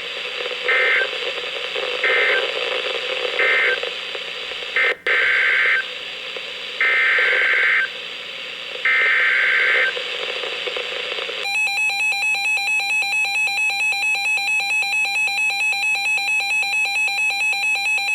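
NOAA Weather Radio broadcast hiss broken by screeching digital SAME data bursts: three short ones, then three longer ones about a second apart, the coded header that announces a new alert. After about eleven seconds a weather radio receiver's alert beeps loudly and rapidly, about four beeps a second, set off by the coded warning.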